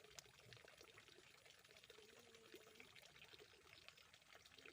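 Near silence with a faint, steady trickle of running water.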